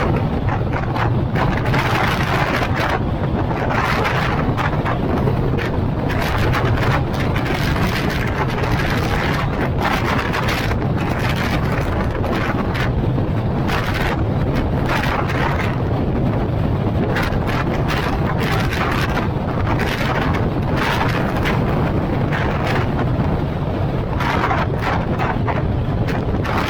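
Wind buffeting the microphone in uneven gusts over a steady low drone of vehicle and road noise.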